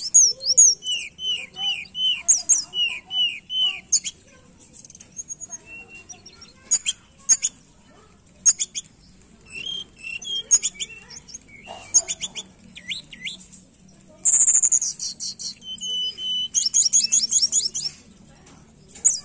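Tledekan gunung songbird singing: phrases of high whistles, fast trills and repeated down-slurred notes, broken by short pauses.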